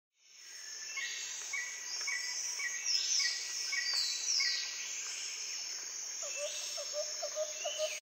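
Nature ambience: a steady high insect drone with repeated bird chirps and gliding whistles over it, fading in just after the start. Near the end a quick run of short, lower chirps comes in.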